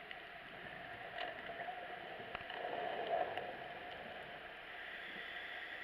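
Underwater ambience heard through a dive camera's housing: a steady muffled hiss with a swell of scuba exhaust bubbles gurgling about two and a half seconds in, and a few faint clicks.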